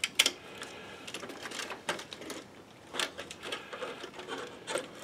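Scattered light clicks and rubbing as the parts of a partly disassembled LCD projector are handled, with a few sharper clicks spread through.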